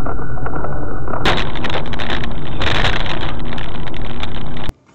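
Car engine and tyre noise inside the cabin, loud and steady. It grows brighter and harsher about a second in, then cuts off suddenly near the end.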